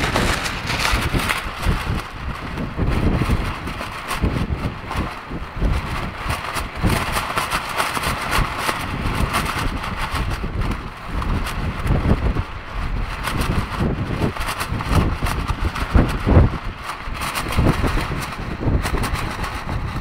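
Strong gusty wind buffeting the microphone, rising and falling in gusts, with a thin plastic rain poncho flapping and crackling in it.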